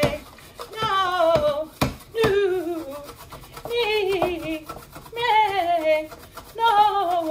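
A woman singing vocal warm-up exercises: short runs that fall in pitch, repeated about every second and a half, five in all. A single sharp knock sounds just under two seconds in.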